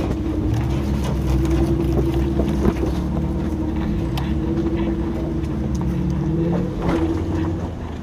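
Jeep engine running steadily at low revs as it crawls over rocks, a constant drone, with scattered small knocks and clicks.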